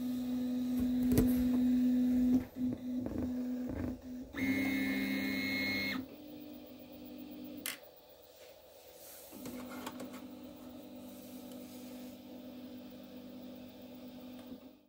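Artillery Sidewinder 3D printer's motors humming as it runs its automatic bed-leveling routine, stopping and starting as the axes move, with a higher whine for a second or two about four and a half seconds in and a sharp click about seven and a half seconds in.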